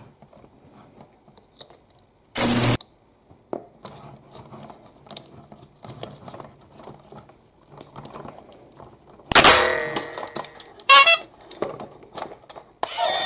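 Battery-powered Train & Friends stunt toy train: light clicks as its switch and body are handled, a short loud electronic horn honk about two seconds in, and two more sudden loud sound effects later. Its music starts just before the end.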